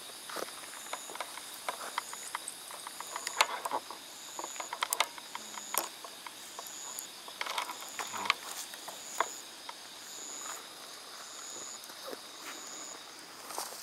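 Night insects: one gives a short high chirp about every three-quarters of a second over a steady high insect hum. Irregular close crunches and clicks of footsteps on leaf-strewn ground are mixed in, the loudest a few seconds in.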